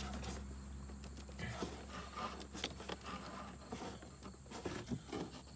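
Light rustling, scraping and small irregular clicks as a new pleated air filter is pushed and twisted into its housing on a Club Car golf cart.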